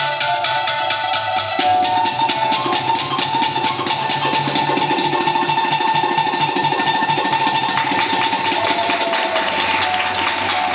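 Tsugaru-shamisen and tabla playing together: plucked shamisen notes over a continuous run of quick tabla strokes.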